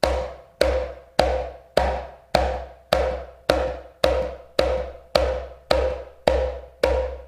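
Haitian hand drum played with closed slaps: one hand rests on the head while the fingertips of the other slap it. About thirteen sharp strokes in an even pulse, a little under two a second, each with a low thump under a short crack.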